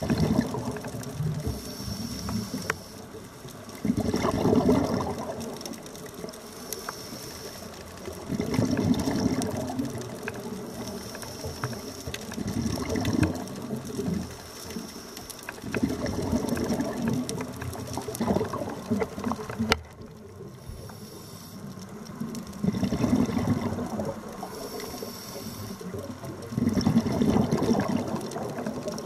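Underwater recording of a diver's exhaled breath bubbling, with a rush of bubbles about every four seconds over a steady background hiss.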